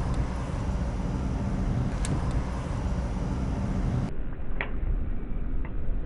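Steady low rumble of a car's engine and road noise heard from inside the cabin. There is a sharp click about two seconds in, and two short, higher sounds near the end.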